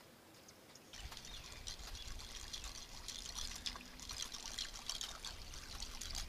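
Water splashing and trickling, starting about a second in, over a low rumble.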